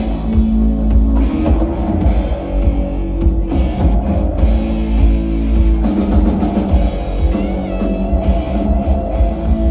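A live rock band playing with a drum kit, two electric guitars and a bass guitar. The band shifts into a new section about six seconds in.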